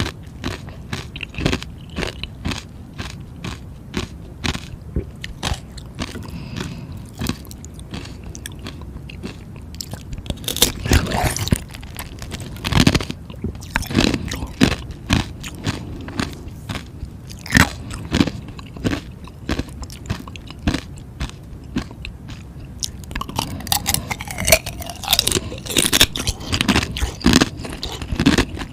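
Close-miked biting and chewing of frozen ice: a rapid run of sharp crunches and cracks, with louder, denser bursts of crunching about halfway through and again near the end.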